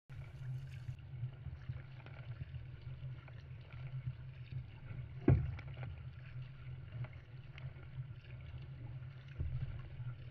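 Water rushing and splashing along the hull of an Epic V8 Ultra surfski as it is paddled, with a sharp knock about five seconds in.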